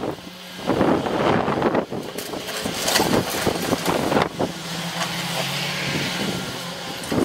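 Heavy excavator demolishing a building: a steady diesel engine hum under repeated cracking and crunching of breaking debris.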